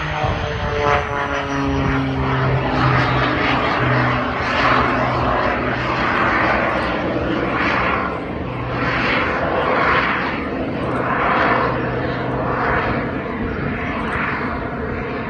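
Jet-assisted Pitts biplane flying past: its piston engine and propeller with the whine of its small wing-mounted jet engines. The pitch falls early on as it passes, then the noise swells and fades in a regular pulse about every one and a half seconds over a steady low hum.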